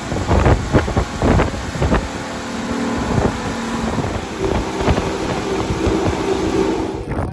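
Evinrude E-TEC two-stroke outboard motor running at speed, its steady engine tone under the rush of water and wind on the microphone. Several thumps in the first two seconds, as the hull slaps the waves.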